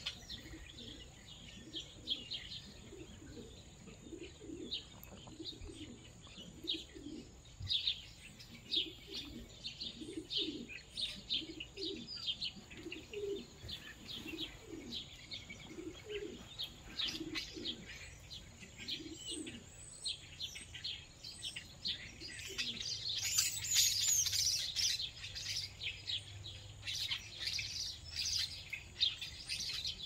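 Many small birds chirping in quick, overlapping calls, with pigeons cooing low and repeatedly underneath for much of the first two-thirds. About three-quarters through comes a louder, denser flurry of chirping.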